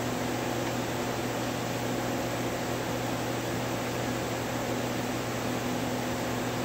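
CNC lathe idling, not cutting: a steady hum with a constant fan-like hiss.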